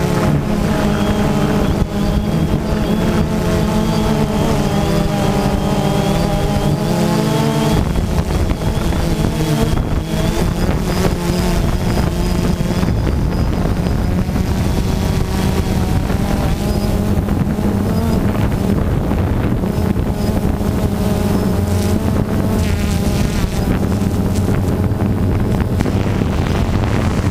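DJI Phantom 2 quadcopter's four electric motors and propellers buzzing in flight, heard close up from its onboard camera. Their pitch wavers up and down as the motors change speed, and wind noise on the microphone fills in from about eight seconds in.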